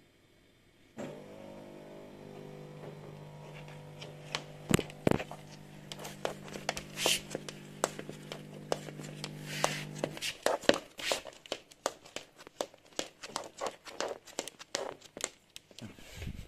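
Tortoise's claws and shell clicking and scraping on a wooden floor as it walks, the clicks coming faster and denser in the second half. A steady hum with several tones runs under the first part and stops suddenly about ten seconds in.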